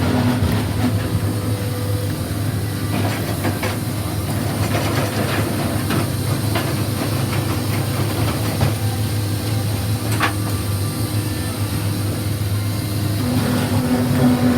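Sawmill log debarker running: a steady low machine hum with scattered knocks, one sharp knock standing out about ten seconds in.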